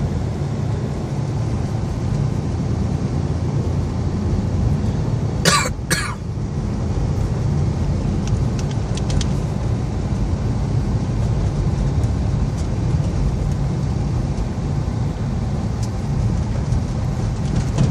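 Steady low rumble of a car driving on snowy roads, engine and tyre noise heard from inside the cabin. About a third of the way in come two short sharp sounds half a second apart.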